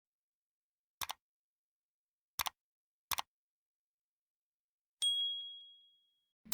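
Three short double clicks, then a single high-pitched ding that rings out for under a second.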